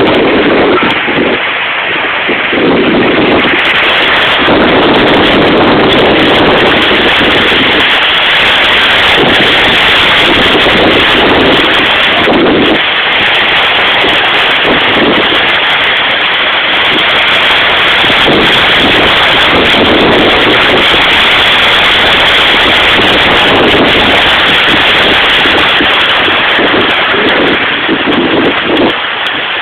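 Heavy storm rain falling steadily, with gusts of wind rumbling unevenly on the microphone.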